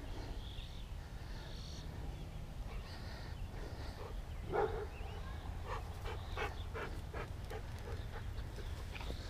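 Siberian husky panting, with a quick run of breaths in the second half and one louder short sound about halfway through, over a steady low rumble.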